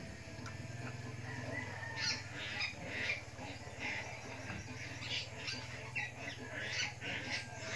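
Short, high-pitched animal squawks, repeated about twice a second from about two seconds in, over a steady low hum.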